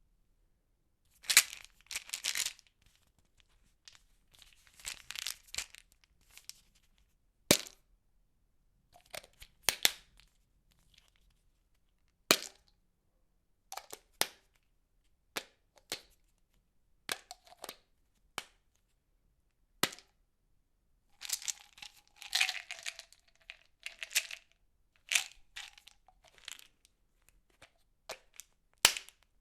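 Pill bottle handled: sharp single clicks and short rattling bursts at irregular intervals, a second or two apart.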